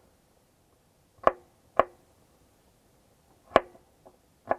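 Kitchen knife cutting red onion on a wooden cutting board: four sharp knocks of the blade hitting the board, unevenly spaced.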